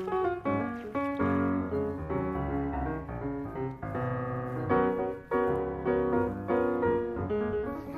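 Background piano music: a steady stream of notes over a low bass line.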